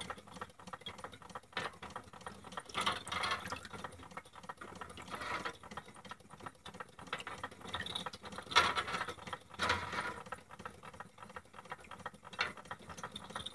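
Carette tinplate water elevator toy running: a fast, steady clatter of its bucket chain and gearing, with short splashes of water every few seconds as the buckets tip their load into the hopper and it pours back into the tank.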